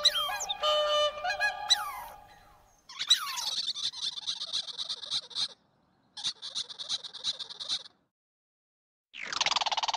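High-pitched animal calls: whistled notes that slide in pitch, then three bursts of rapid chirping, each one to two and a half seconds long, broken by sudden silent gaps.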